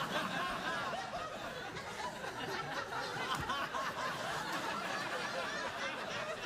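Studio audience laughing and chuckling, many voices at once at a steady level.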